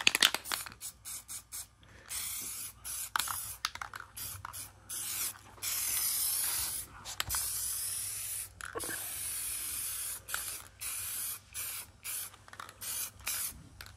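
Aerosol spray can of paint hissing as it sprays, in a run of short bursts and then a longer steady pass of a couple of seconds near the middle, followed by more short passes.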